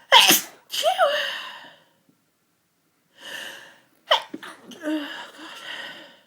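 A person sneezing twice, about four seconds apart, with a gasping breath in before the second sneeze; each sneeze is a sharp explosive burst trailing off into a breathy voiced exhale. Part of a sneezing fit that red wine brings on.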